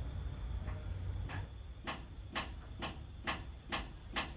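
Steady high-pitched chirring of night insects, with a run of about seven sharp clicks or knocks, roughly two a second, starting about a second in.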